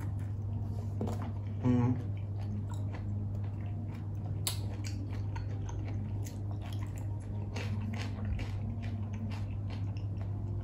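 Close-miked chewing of raw shrimp: wet mouth noises with many small crunchy clicks, over a steady low hum. A brief hummed 'mm' about two seconds in.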